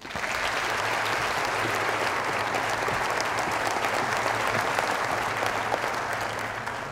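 Audience applauding steadily, starting to die down near the end, with a faint low hum underneath.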